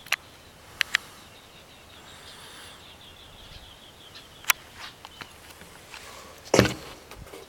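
A few sharp clicks, and a louder thump about six and a half seconds in, over faint high chirping.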